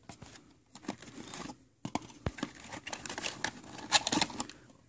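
Crinkling and rustling of a cardboard toy box and plastic wrapping being handled and slid apart, in irregular strokes with small clicks and a sharp tap about two seconds in.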